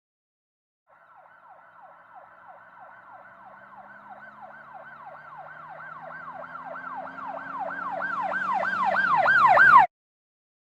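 A siren sounding in quick repeated pitch sweeps, about three a second, with a low drone beneath. It grows steadily louder for about nine seconds, then cuts off abruptly.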